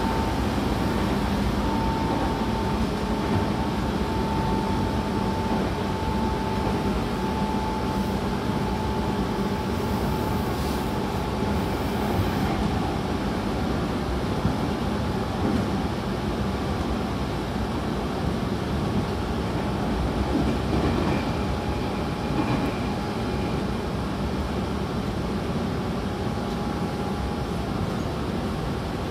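Tobu 20400 series electric train running, heard inside the passenger car: a steady rumble of the wheels and running gear with a faint whine from its Toyo Denki GTO-thyristor VVVF traction drive, which fades out about a third of the way in and comes back near the end.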